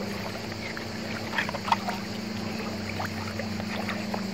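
Shallow river water sloshing and splashing around hands digging in the riverbed and a gold pan of gravel held in the current, with a few short splashes or stone clicks. A steady low hum runs underneath.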